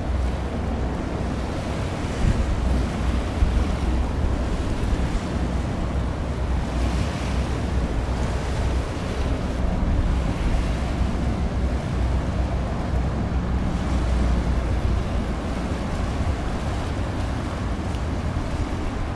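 Steady wind rushing and buffeting on the camera microphone, heavy in low rumble, over the wash of choppy sea water.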